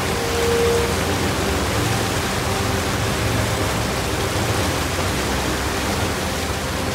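Motorboat wake rushing and churning behind the moving boat, a steady wash of water, with a low hum beneath. A short faint tone sounds about half a second in.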